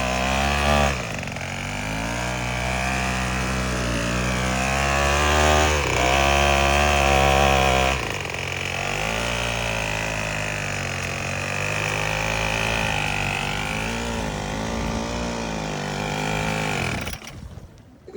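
Small weed-eater (string trimmer) engine driving a kayak, running hard and rising and falling in speed several times. It stops abruptly near the end.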